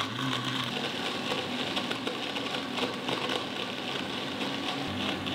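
BQ 1200-watt blender running steadily, its blade churning milk with dates and almonds in the glass jug.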